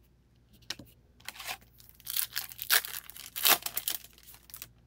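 Foil O-Pee-Chee Platinum hockey card pack being torn open and its wrapper crinkled: a run of quick rips and rustles starting about a second in, loudest in the middle and dying away near the end.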